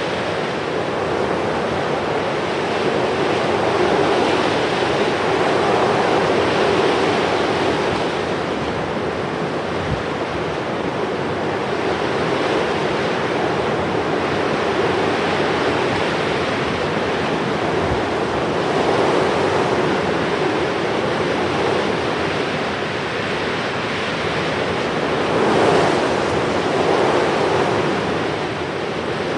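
Steady rushing of sea surf, waves swelling and easing every few seconds.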